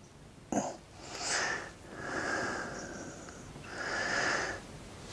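A man breathing loudly through his nose close to the microphone: three long breaths, one carrying a faint whistle, with a small click just before the first.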